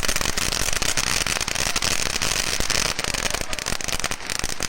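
A consumer ground firework going off, giving a dense, rapid crackling over a steady hiss.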